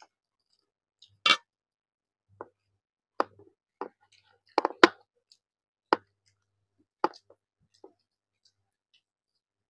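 Eating sounds: about nine short, sharp clicks and smacks, spaced irregularly, from people eating fish curry with rice. The loudest comes about five seconds in.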